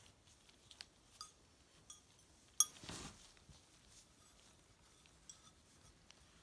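Marlborough crackle-glazed ceramic tiles giving off scattered faint high ticks and pings as their glaze cracks, the clearest a short ringing ping about two and a half seconds in. A sealant cloth rubs briefly across a tile just after it.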